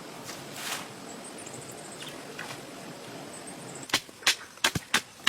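A tool striking wood in a quick series of sharp knocks, about three a second, starting near the end after a stretch of faint steady background noise.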